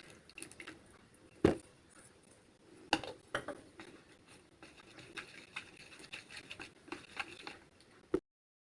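Kitchen utensils and dishes being handled: scattered clicks and light knocks, with one sharp knock about a second and a half in. The sound cuts off abruptly near the end.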